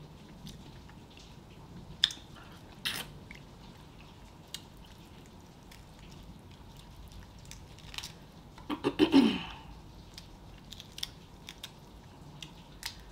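Shrimp being eaten close to the microphone: chewing and wet mouth sounds with scattered sharp clicks. A louder mouth sound with a falling pitch comes about nine seconds in.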